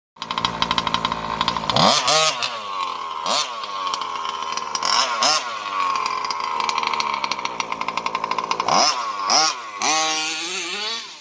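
Small two-stroke engine of a fuel-powered RC car running at high revs, with the throttle chopped and reopened about five times so the pitch dips and climbs again.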